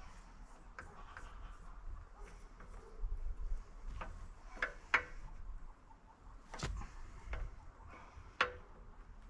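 Hand tools clinking and knocking on metal while a damaged hose and fitting are taken off an excavator. There are scattered light clicks and a few brief ringing metal clinks, the loudest about five seconds in and near the end.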